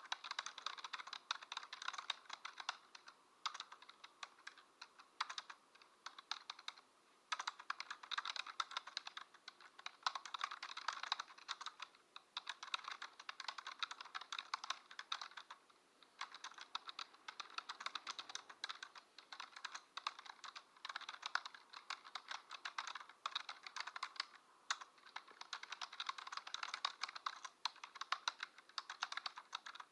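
Computer keyboard typing: fast runs of keystrokes with short pauses every few seconds.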